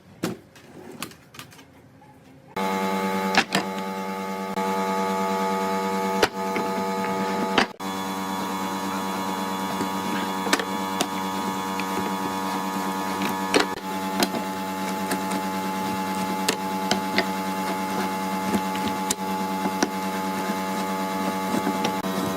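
An electric motor, most likely a shop power tool, switches on about two and a half seconds in and runs at a steady pitch, with scattered sharp clicks over it.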